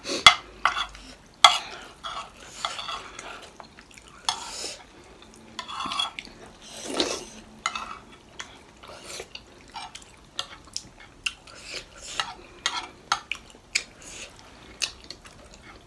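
Metal spoons scraping and clinking against ceramic dinner plates as sauce is scooped up, in many short irregular clinks.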